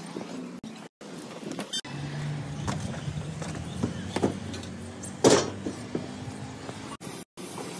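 Knocks and clanks of someone climbing a tanker truck's steel ladder over a steady low hum, with one loud clank about five seconds in. The sound cuts out abruptly twice.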